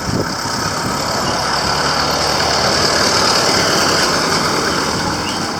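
Motor vehicle engine running close by in street traffic, a steady noise that swells to its loudest about three seconds in and then eases off.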